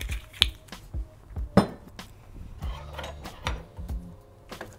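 Metal kitchen utensils clinking and knocking as a spoon is taken from a crock of ladles and spoons: a string of sharp, irregular clicks, the loudest about a second and a half in.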